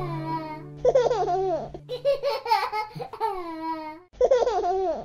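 A young child laughing and giggling in three high-pitched bursts that cut off suddenly at the end.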